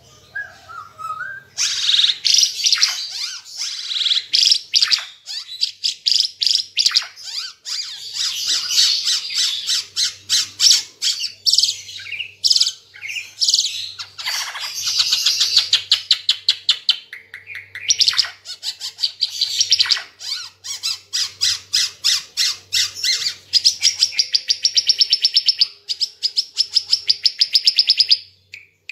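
Ara Timor songbird singing loudly and continuously in fast, high chattering phrases with only brief pauses. In the second half it breaks into long trills of rapidly repeated, evenly spaced notes.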